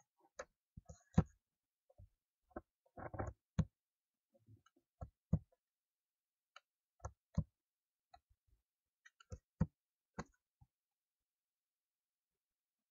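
Computer mouse and keyboard clicks at irregular intervals, some with a duller knock and a quick cluster about three seconds in; they stop about two seconds before the end.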